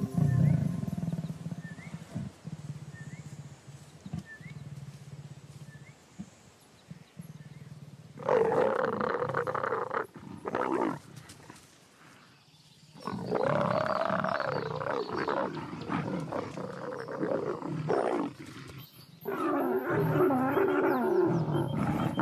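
A mating pair of leopards growling, in three loud, rough bouts starting about eight, thirteen and nineteen seconds in, the middle one the longest.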